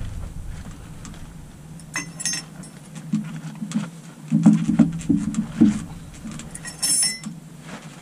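Metal clinks and low knocks as the chrome piston rod of a John Deere 310D backhoe boom cylinder is pushed down into its barrel by hand, the sharpest clinks about two seconds in and near the end, over a steady low hum.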